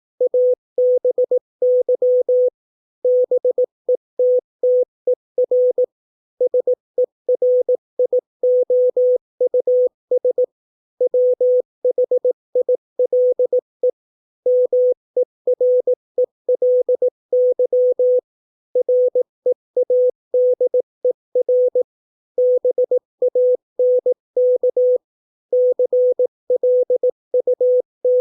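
Morse code sent as a single pitched beep keyed on and off at 18 words per minute: short dots and longer dashes spelling English words, with brief pauses between the words.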